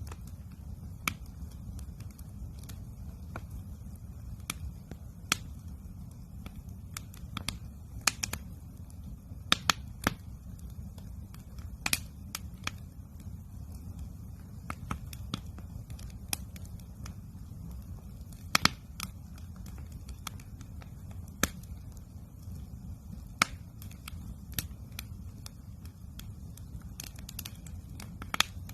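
Campfire wood crackling and popping: irregular sharp snaps, a few louder pops among them, over a steady low rumble.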